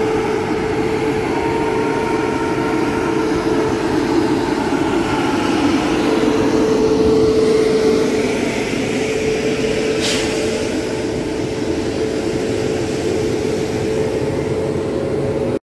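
Indian Railways electric locomotive humming steadily at close range, with a strong held mid-pitched tone over a noisy drone. A brief hiss comes about ten seconds in, and the sound cuts off suddenly near the end.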